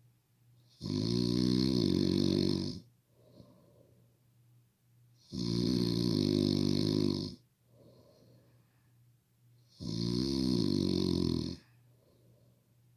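A sleeping person snoring: three long snores of about two seconds each, some four and a half seconds apart, with faint breathing between.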